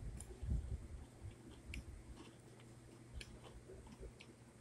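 A person chewing chocolate chip cookies, with soft mouth clicks and small crunches scattered through.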